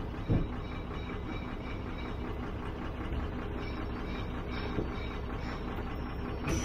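Recovery truck's engine running while its winch draws a small hatchback slowly up the tilted bed, with faint regular ticking and a single thump about a third of a second in.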